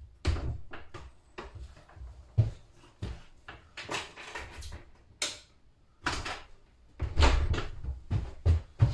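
Workshop door being opened and shut, with a run of knocks, clicks and rustles as things are handled at the wall hooks. Near the end come heavier thuds of footsteps on the floor.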